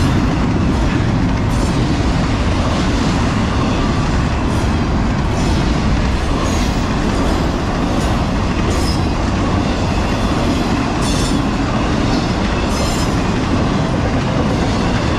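Loud, steady rumble of double-stack intermodal container cars rolling past on the rails, with a few short, sharp high sounds scattered through it.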